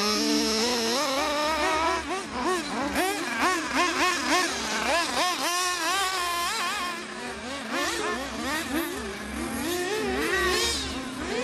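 Several 1/8-scale 4WD RC buggies with .21 two-stroke nitro glow engines racing, their high-pitched engine whines overlapping and rising and falling over and over as the throttles open and close through the corners.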